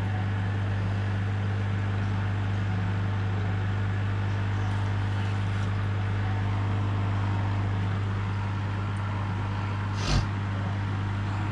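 Aquarium power-head filter pump running with a steady low hum and a faint hiss of moving water. A single short thump about ten seconds in.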